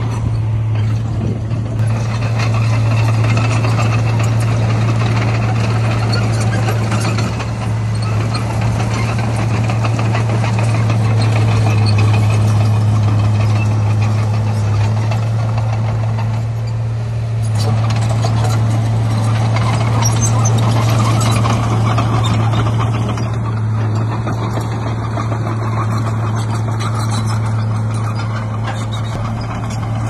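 Diesel engine of heavy earthmoving machinery running steadily, a constant low drone with rough mechanical noise over it.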